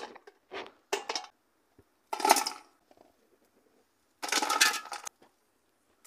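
Oyster shells dropped by the handful into an aluminium cooking pot, clattering against the metal and against each other in four separate bursts.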